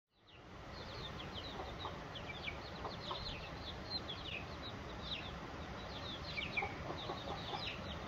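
A flock of young chickens cheeping and clucking, many short, high, falling calls overlapping throughout over a steady low rumble, fading in at the start.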